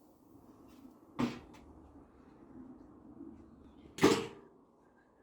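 Two sharp knocks, a lighter one about a second in and a louder one about four seconds in, over a low steady background noise.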